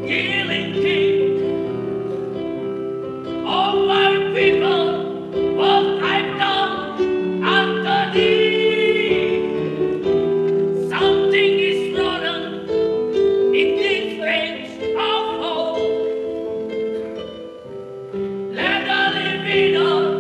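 A song: a singing voice in phrases over held instrumental chords.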